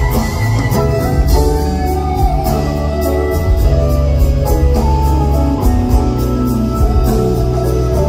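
Live band playing an instrumental passage: an electric guitar leads a melody over bass, keyboards and a steady percussion beat.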